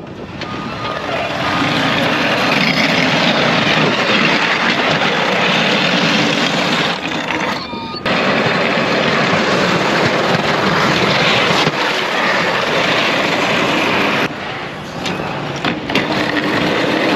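Arctic RazorBack sectional pickup-truck plow pushed along with its blade down, its cutting edge scraping over cracked pavement and gravel, with the pickup's engine under it. A loud, steady scraping noise that builds up over the first couple of seconds and drops out briefly twice.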